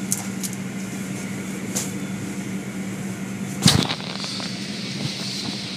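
Automatic car wash heard from inside the car: water spraying and streaming over the car, with a steady low hum from the machinery. There are a few sharp knocks, the loudest a thump a little after three and a half seconds.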